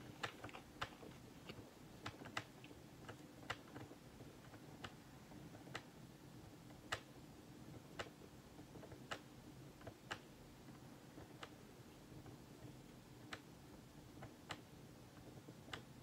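Near silence with faint, irregular light clicks, roughly one a second, over a faint steady hum.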